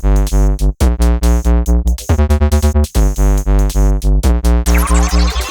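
Electronic music: a heavy bass beat pulsing about three to four times a second under synthesizer chords, with short breaks about three-quarters of a second in and near three seconds, and a rising synth sweep near the end.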